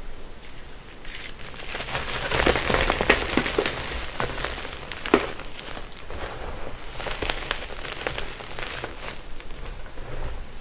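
Gym chalk being crushed and crumbled by hand: a dense crackle of small crunches, with one sharp crack about five seconds in and lighter crumbling after it.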